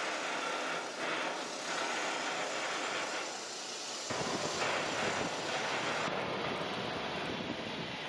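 Steady running noise of a remote-controlled electric rail transfer cart moving along its track. About four seconds in, the sound changes abruptly and becomes fuller and lower.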